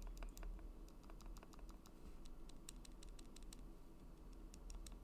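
Stabilized modifier keys on a custom mechanical keyboard with lubed Gateron Milky Yellow linear switches, pressed over and over in a quick, irregular run of faint clacks. There is just the tiniest bit of rattle in a few of them, which the owner puts down to the dielectric grease settling on the Durock V2 stabilizer wires, or to wires that were never balanced.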